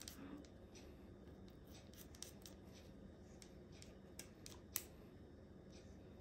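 Kitchen shears snipping yellow fat off a raw chicken drumstick: faint, scattered snips, with one sharper snip a little past the middle.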